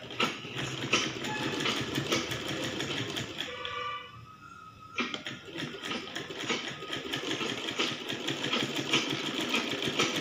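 Sewing machine stitching through fabric with a rapid, even ticking of the needle. It stops briefly about three and a half seconds in and starts again about a second and a half later.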